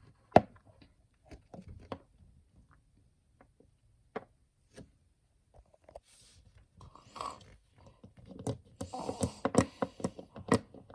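Scattered light clicks and knocks, growing into a busier patch of clicking and rustling about eight seconds in.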